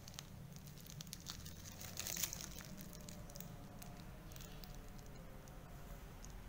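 Faint crinkling of a plastic piping bag being squeezed as custard filling is piped into a choux puff, with scattered small clicks and a louder rustle about two seconds in.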